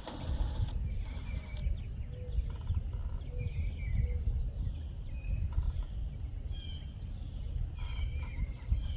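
Birds chirping and trilling in short calls, over a low steady rumble.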